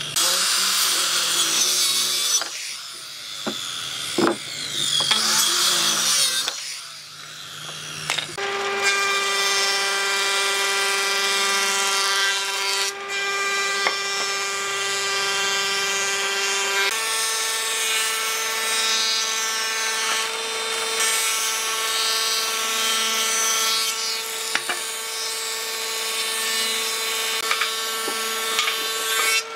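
A circular saw cutting pine boards in short passes, then a combination jointer-thickness planer running with a steady whine as its cutter head planes boards fed through it, chips spraying; the whine steps up in pitch once, partway through.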